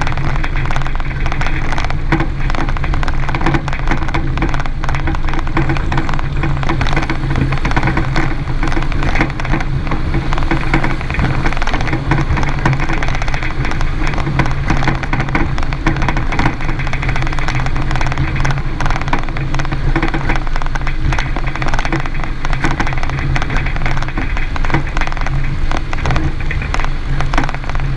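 A 2017 Renault Duster 4x4 on the move, a steady hum of the running car with frequent irregular knocks and rattles from the passenger-side suspension. The noise persists even with new strut mount kits, stabilizer link and sway-bar bushings, so its cause is still unfound.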